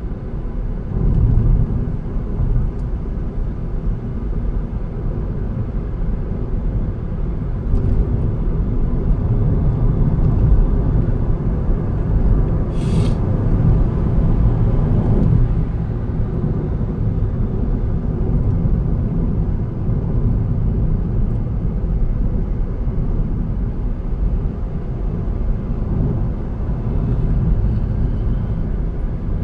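A car driving on the road: a steady low rumble of engine and tyre noise. A brief high hiss cuts in about halfway through.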